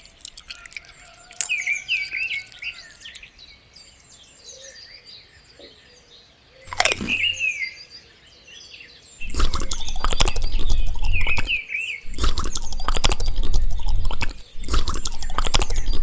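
Birds chirping in short calls, with one whistle-like sweep up and down about seven seconds in. From about nine seconds, three loud stretches of rapid dense clattering with a deep thudding underneath take over as the loudest sound.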